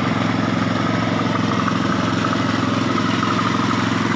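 A small engine running steadily at an even, unchanging speed, with a faint whine above its hum.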